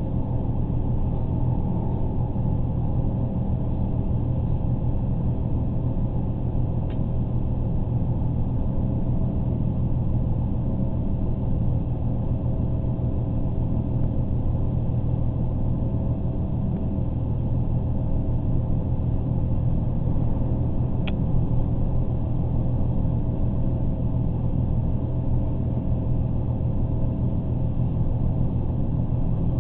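Passenger train running at speed, heard from inside the carriage: a steady low rumble of wheels on track and running gear, with a faint steady whine above it. Two faint clicks, one a few seconds in and one past the middle.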